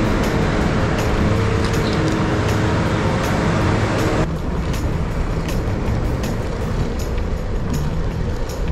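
Wind rushing over the microphone with road and traffic noise during a ride on an electric kick scooter, with a steady hum in the first half. The sound changes abruptly about four seconds in.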